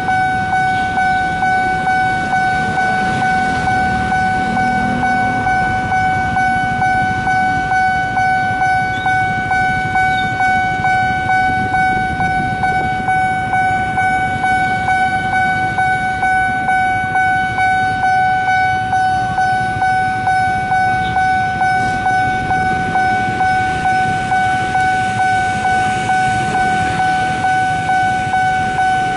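Level-crossing warning bell ringing a steady high electronic tone that pulses rapidly and evenly, signalling an approaching train. A low rumble of road traffic lies underneath.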